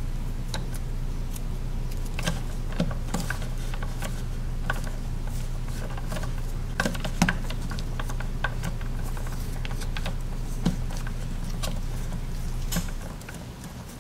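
Fingers pressing and working Play-Doh into a plastic toy mold, with scattered light clicks and taps of fingernails and plastic. A steady low hum underneath drops away near the end.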